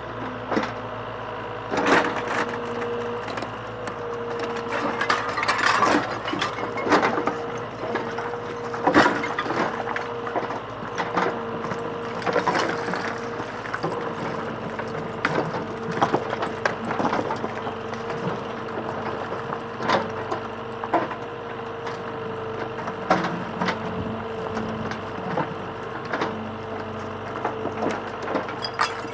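Komatsu backhoe loader demolishing a stone-walled house: a steady machine hum throughout, with repeated irregular cracks and crashes of stone, timber and roof tiles breaking and falling.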